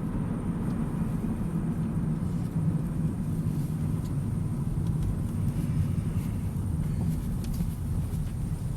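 Steady low rumble of a car on the move, engine and road noise heard from inside the vehicle.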